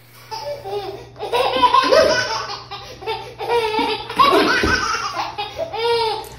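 A baby laughing hard in repeated high-pitched belly laughs, one peal after another.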